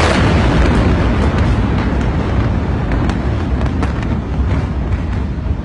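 Loud, continuous rumble of a massive chemical-warehouse explosion, its blast wave buffeting the microphone, slowly easing, with a few sharp cracks about halfway through.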